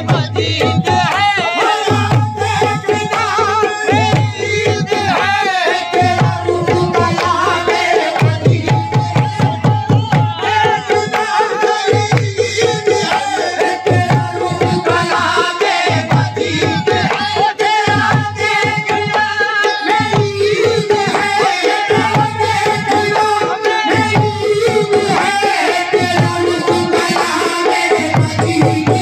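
Devotional song: a voice singing a wavering, ornamented melody over a steady tabla rhythm, with held instrumental tones underneath.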